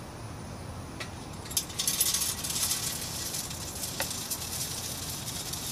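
Hickory wood pellets poured from a cup into a perforated stainless steel pellet tube smoker: a dense, high-pitched rattle of small pellets against the metal, beginning about a second and a half in and loudest right after it starts.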